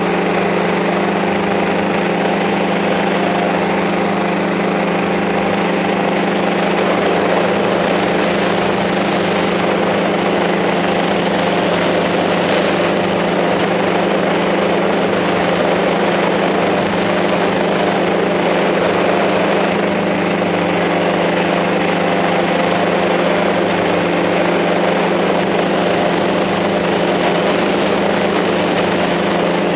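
Small multirotor camera drone's electric motors and propellers humming, a steady buzz with a strong low tone that holds the same pitch throughout.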